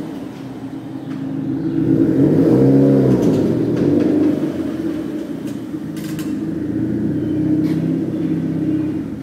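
Mazda Miata's four-cylinder engine running, with the revs rising and falling once about two to three seconds in. Several short clicks or pops sound over it in the second half. They are of the kind the owner hears from the suspension when pulling away, though some may be gear engagement or creaking front brakes.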